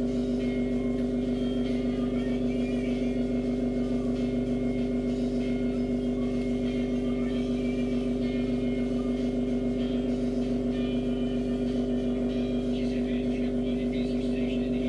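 A steady low hum with no change in level, with faint, thin higher sounds wavering over it.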